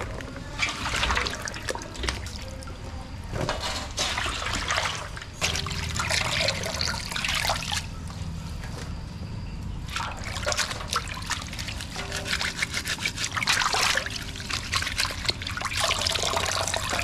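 Heavy rain with water trickling and splashing, swelling and easing every few seconds.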